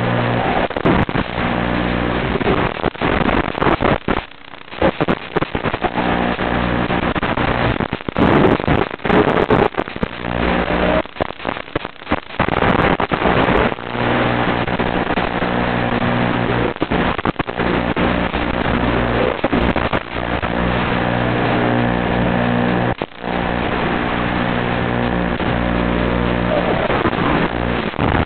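FPV racing quadcopter's motors and propellers running in flight, a steady hum with pitch rising and falling now and then. The sound drops out briefly several times.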